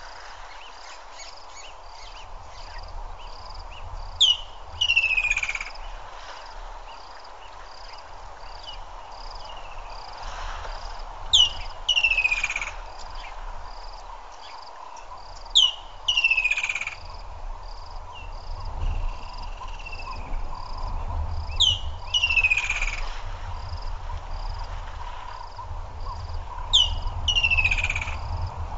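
A bird repeats a loud two-part call about every five seconds, each part a quick downward whistle, five times in all. Behind it runs a steady high chirping of frogs or insects at about two a second.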